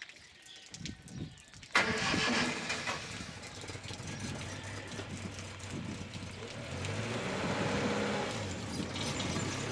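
A motor vehicle's engine starts abruptly nearly two seconds in and keeps running steadily.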